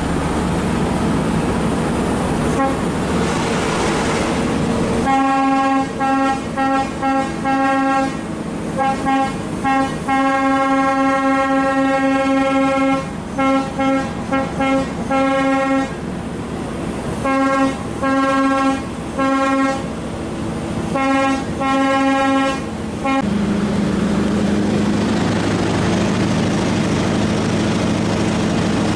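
Truck air horn sounded in a long run of short and longer blasts at one steady pitch, starting about five seconds in and stopping about five seconds before the end. Under and around it runs the steady drone of the Scania R580's V8 diesel pulling a 60-ton load.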